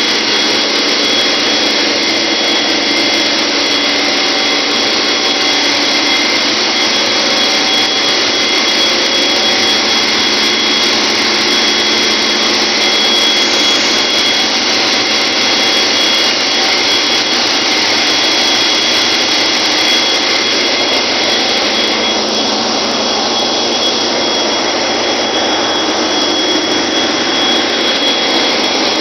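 Engine-room machinery of a chemical tanker running: a loud, steady din with constant high-pitched whines through it.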